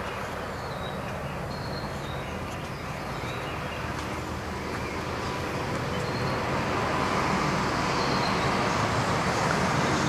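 Steady road-traffic and vehicle noise with a low engine hum, gradually growing louder in the second half.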